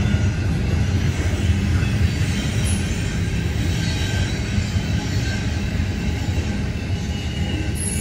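Double-stack intermodal container cars rolling past on the rails: a steady low rumble with faint, scattered high-pitched wheel squeals, easing off slightly near the end as the last car goes by.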